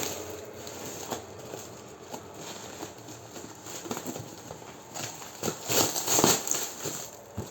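A parcel being opened by hand: packaging rustling, scraping and tearing in irregular bursts, loudest a little after the middle.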